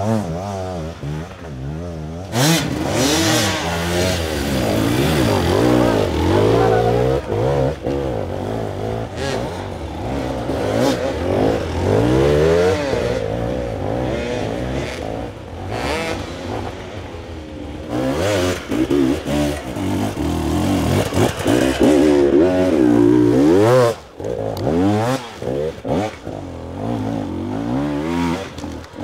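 Off-road dirt bike engines revving hard under load, the pitch rising and falling over and over as the throttle is worked on a steep climb, with scattered knocks and clatter from the wheels on rock and roots.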